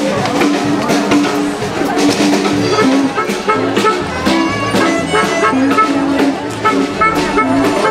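Instrumental music with drums, a melody of short notes stepping from one pitch to the next over a regular beat.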